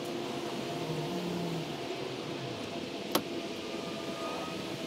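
Steady mechanical hum with a few held tones, and one sharp click about three seconds in.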